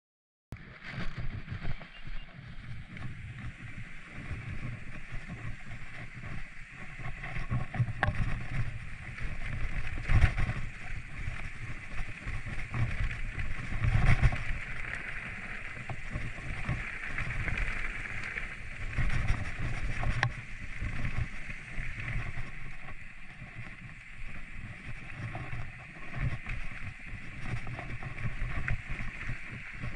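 Mountain bike riding a rough trail: wind buffeting the microphone over a rumble from the tyres and frame, with scattered knocks and rattles as the bike goes over bumps.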